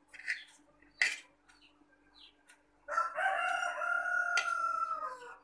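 A rooster crowing once: a single long call of about two seconds, starting about three seconds in and dropping in pitch as it ends. Before it come a couple of short knocks, the sharpest about a second in.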